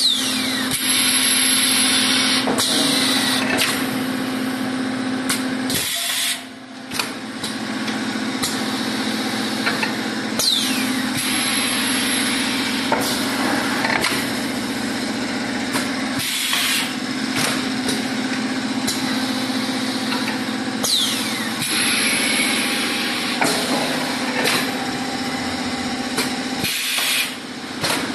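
Automatic air fryer paper liner forming machine running: a steady motor hum under repeated clanks and knocks from the press, with patches of hiss and a few short falling squeaks. The sound drops away briefly twice, about six seconds in and near the end.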